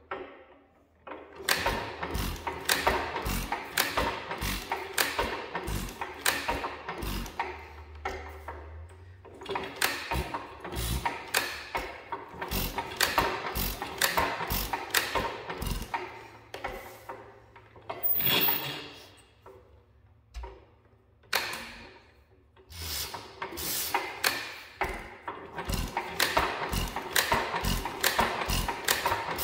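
Antique hit-and-miss engine being spun over by hand on its flywheel to start it, the valve gear and igniter clicking rapidly. The clicking comes in three spells with short pauses between.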